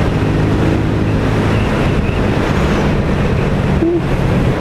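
Wind rushing over the camera microphone while riding, over the steady hum of a Honda CBR150R's single-cylinder engine at cruising speed.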